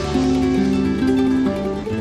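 Background music: a plucked guitar melody over a steady bass line, the notes changing about every half second.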